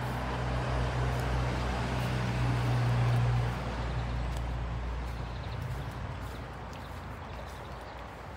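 A low, steady engine hum, loudest about three seconds in and then fading away.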